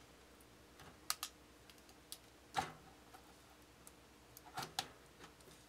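A few faint, scattered clicks and taps, the loudest about two and a half seconds in, as an ASUS TUF RTX 4070 Ti graphics card is worked down into the motherboard's PCIe slot and the case's expansion bracket.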